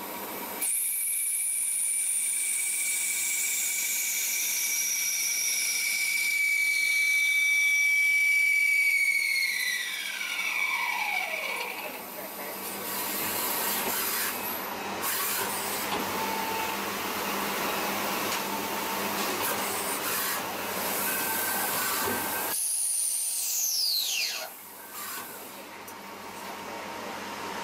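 CNC lathe spindle turning a brass bar with a steady high whine that falls in pitch as the spindle winds down about ten seconds in. Then the hiss of coolant spray with machining noise, and a second falling whine as the spindle spins down again around 23 seconds.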